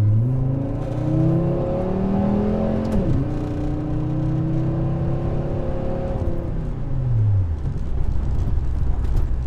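Turbocharged five-cylinder engine of a 1996 Volvo 850 wagon under full throttle, heard from inside the cabin. The pitch climbs, drops sharply about three seconds in as the automatic gearbox upshifts, then climbs again. Around six to seven seconds in it falls away to a low steady drone with road noise.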